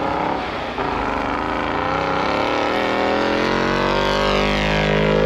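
Off-road trucks drag racing on snow, engines at full throttle: the pitch dips briefly about a second in, then climbs steadily as they accelerate hard past, dropping away near the end.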